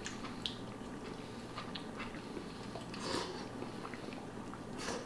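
A person chewing and eating, quietly, with soft wet mouth sounds, small clicks and a couple of brief breathy smacks or slurps.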